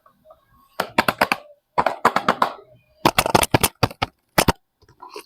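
Soap packaging crinkling and tearing as it is opened by hand: four quick bursts of crisp crackles.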